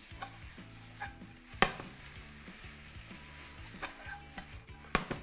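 Zucchini noodles sizzling in a hot frying pan as they are stirred and tossed with a spatula, a steady high hiss. Two sharp knocks against the pan, about one and a half seconds in and near the end.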